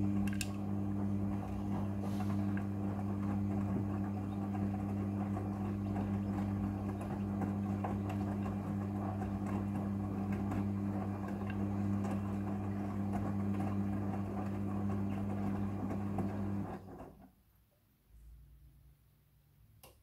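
Midea front-loading washing machine turning its drum: a steady motor hum over the churn of wet laundry tumbling. The hum stops suddenly about seventeen seconds in and the drum comes to rest.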